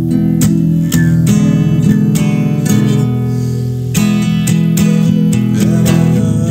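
Instrumental break of a blues song: acoustic guitar strummed in a steady rhythm over sustained low notes, with no singing.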